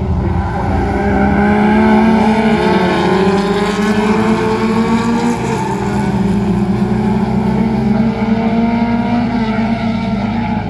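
Several folkrace cars' engines running hard at high revs as they race around the track, their pitches wavering up and down as they accelerate and shift, with cars passing close by.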